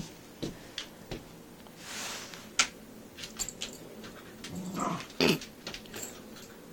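A dog playing with a toy, giving a brief low growl about five seconds in, among scattered clicks and rustling.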